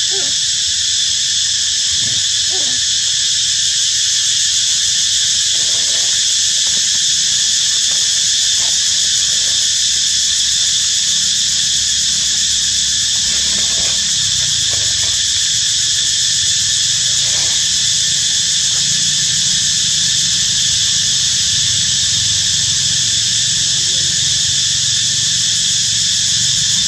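Loud, steady, high-pitched insect chorus that drones on without a break, with a few faint short sounds scattered through it.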